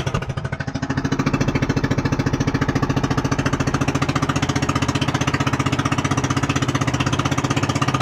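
Inboard engine of a motorized wooden outrigger boat (bangka) running under way, with a fast, even chugging. It picks up slightly about a second in.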